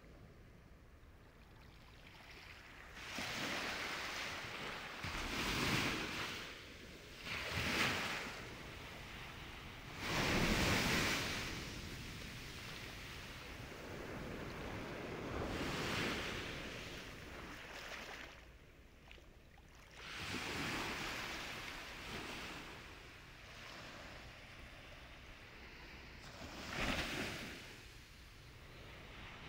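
Sea waves breaking and washing in, the rush swelling and falling away every few seconds.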